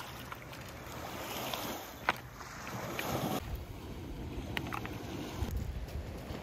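Small lake waves washing over a pebble shore, with wind on the microphone and a sharp clack of stones about two seconds in. About three and a half seconds in, the wash cuts off and a low wind rumble remains, with a few light crunches of small footsteps on gravel.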